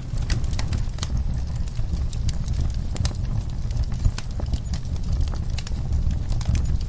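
Wood fire in a fireplace crackling, with many irregular sharp pops and snaps over a steady low rumble of the flames.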